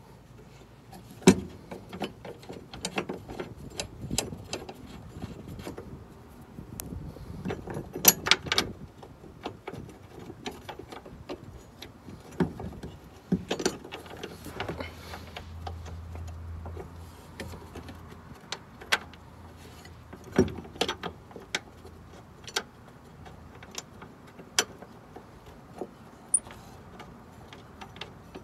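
Scattered small metal clicks and clinks as bolts and a steel sway-bar mounting bracket are handled, lined up and threaded in by hand against the car's rear subframe, with a sharper knock about a second in and a quick cluster of clinks around eight seconds in.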